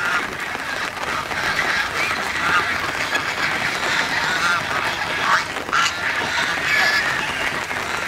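A large flock of domestic geese calling and honking together, many short calls overlapping without a break.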